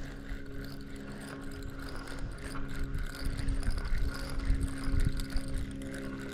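Fishing reel being cranked, its gears and pawl clicking rapidly, over a steady low hum.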